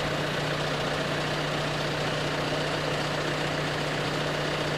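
John Deere utility tractor's diesel engine running steadily with an even hum.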